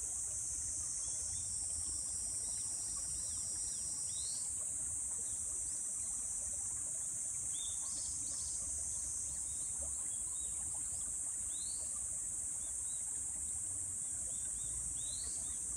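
A steady, high-pitched insect drone fills the air, with a few short, rising bird chirps here and there and a low rumble underneath.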